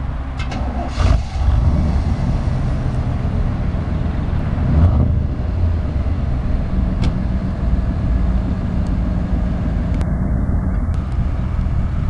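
Chevrolet G20 van's 5.7-litre throttle-body-injected V8, breathing through Magnaflow and Cherry Bomb mufflers, running with a deep, steady exhaust rumble. Its note swells briefly in a short rev about five seconds in.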